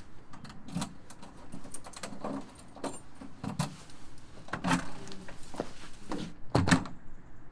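Footsteps and a jingle of keys at an apartment door, then the door closing with a solid knock near the end, the loudest sound.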